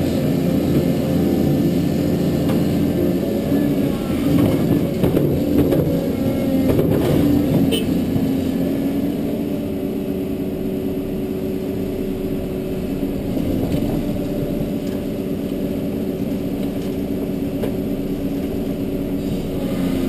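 Caterpillar 320D excavator's diesel engine running steadily under load, heard from inside the cab while the hydraulics work the boom and bucket. A few knocks and clatter come about five to seven seconds in.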